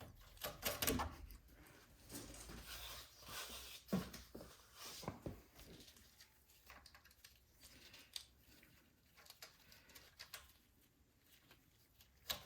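Faint, scattered clicks and taps of small metal parts being handled: nuts being started by hand onto studs on a snowblower engine during reassembly.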